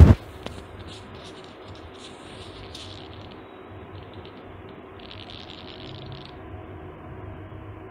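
Faint steady background hum with light scattered clicks during the first few seconds and a brief soft hiss about five seconds in.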